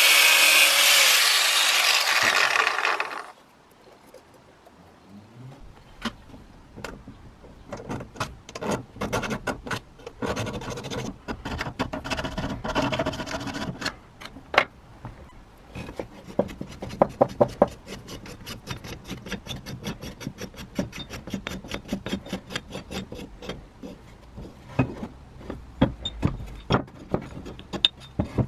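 Angle grinder cutting through the end of a rusty steel spiral-jack screw, stopping suddenly about three seconds in. Then a hand file rasps over the cut end in repeated strokes, followed by many light metallic clicks and rattles as the jack parts are handled.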